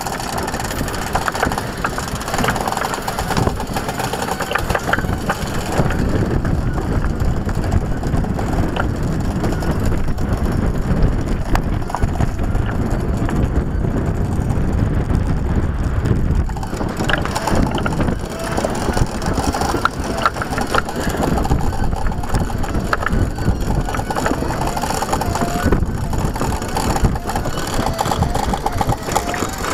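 Steady low rumble of a yacht under way at sea, with frequent clicks and knocks from rigging being worked at the mast. A wavering squeak comes in during the second half.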